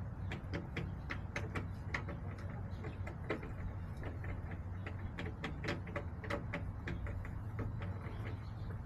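Chickens pecking: a run of irregular sharp taps and clicks, several a second, over a steady low hum.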